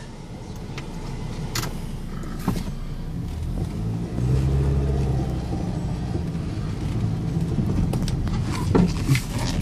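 2005 Ford Ranger XLT pickup's engine running as the truck drives off slowly, heard from inside the cab; the engine note grows louder about four seconds in as it picks up speed. A few light clicks are heard over it.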